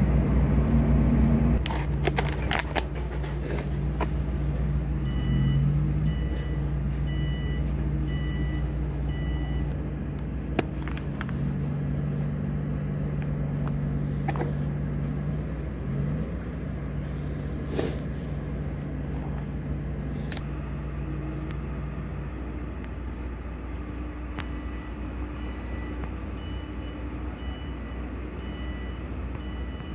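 Diesel engines of heavy construction machinery running steadily, with a few sharp metallic clanks; the engine hum drops away about two-thirds of the way through. A machine's warning alarm beeps at an even pace, a little over once a second, in two runs: in the first third and again near the end.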